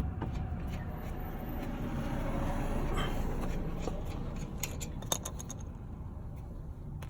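Manual ratchet wrench backing out a 14 mm brake caliper bolt, with scattered, irregular metal clicks over a steady low hum.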